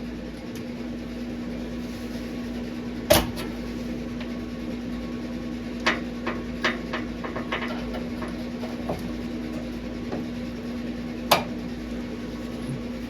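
A steady hum runs underneath a few sharp knocks and clicks: a loud knock about three seconds in, a quick run of lighter clicks in the middle, and another loud knock near the end.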